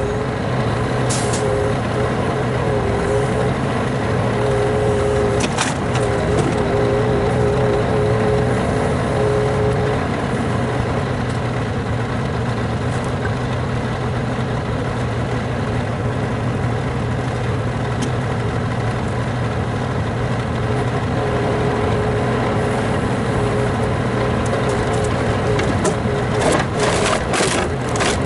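Scania truck's engine running steadily to drive a truck-mounted loader crane, with a wavering whine that comes and goes as the crane works. A few sharp clunks of split logs knocking together in the grapple, several of them near the end.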